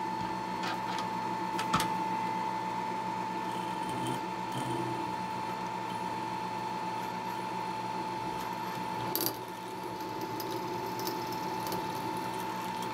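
Milling machine spindle running steadily with a drill bit in its chuck, drilling into a metal block held in the vise; the drive gives a constant whine over a low hum. A couple of faint clicks come about two seconds in and again near nine seconds.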